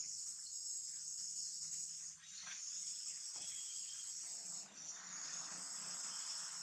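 A high-pitched insect chorus buzzing steadily, dipping briefly about two seconds in and again near five seconds.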